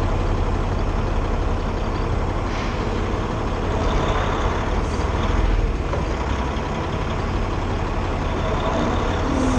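Semi truck's diesel engine running steadily with a low rumble as the rig rolls slowly, heard from a microphone outside the cab.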